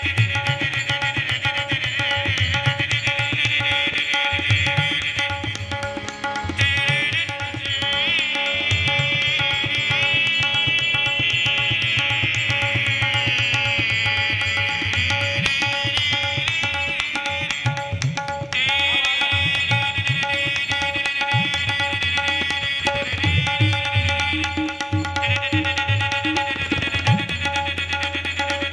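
A shehnai melody imitated through the nose: a high, reedy line with quick ornaments and slow sliding glides between notes. It is accompanied by tabla-style drumming and steady drone notes.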